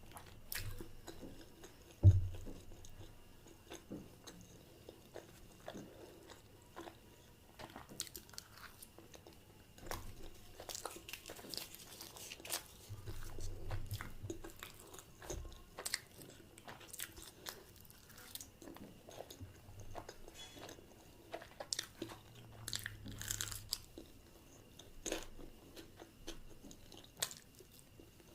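Close-miked chewing and biting of puri with chole: a run of small crisp clicks and wet mouth sounds, with one sharp knock about two seconds in.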